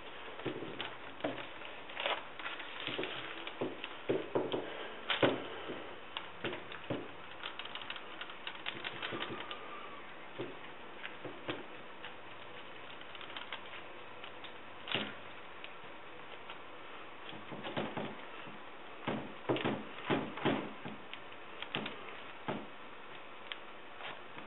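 Rubber-gloved hands working resin-wet fiberglass into a mold: scattered irregular clicks and taps, some in quick runs, as the glass is pressed and pushed around until it soaks through.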